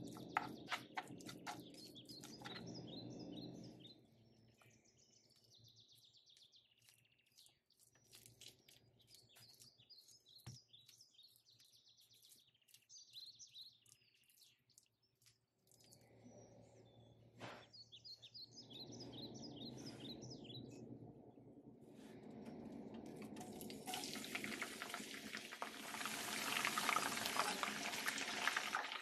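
Curry leaves and garlic sizzling in hot oil in a frying pan, a dense crackling hiss that builds near the end and is the loudest sound. Before that, birds chirp faintly, and at the start a spoon clinks as a spice paste is stirred.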